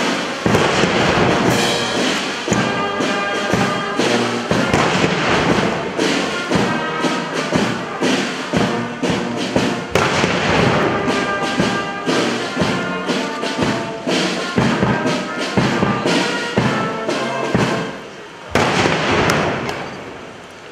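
Ceremonial brass band playing, with heavy drum beats. The music drops away about 18 seconds in, followed by a short, loud noisy burst before it fades.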